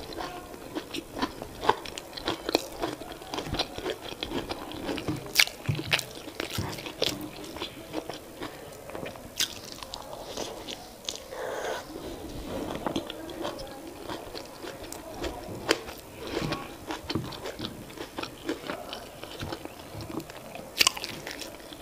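Close-miked chewing of soft boiled sweet potato and vegetable greens, with wet mouth sounds and frequent sharp lip smacks and clicks.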